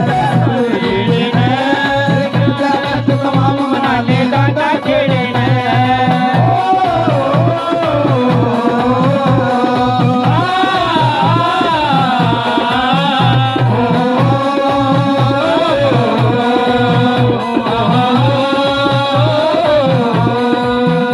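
Amplified live folk music: a steady hand-drum beat under a melodic line that waves up and down in pitch.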